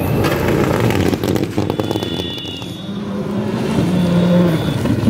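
Rally car driven hard on a gravel stage, its engine note rising and falling between gear changes over gravel noise from the tyres. It grows louder as the car approaches, loudest about four seconds in.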